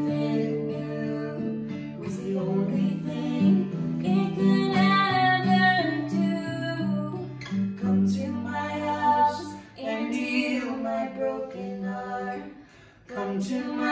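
Acoustic guitar playing the song's accompaniment, with a girl's voice singing over parts of it. The guitar drops away briefly near the end before the voice carries on.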